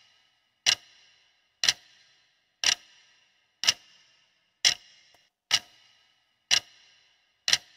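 Clock-ticking sound effect keeping time for a countdown timer: one sharp tick a second, each with a short ringing tail, eight ticks in all.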